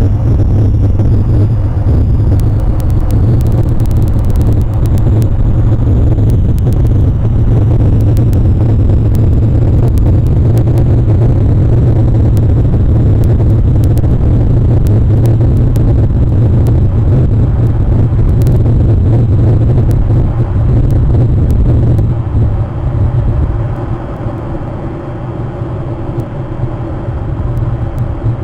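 A loud, steady mechanical rumble with a low hum, easing off for a few seconds near the end before coming back up.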